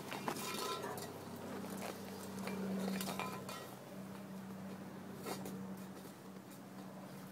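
Light metallic clinks and taps, one early on ringing briefly, from metal knocked about while Labrador puppies play and mouth at a hand; a low steady hum runs underneath.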